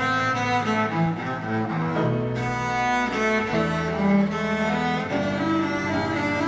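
Violin ensemble with cello playing a slow instrumental introduction to a hymn, several held notes sounding together and moving about once a second.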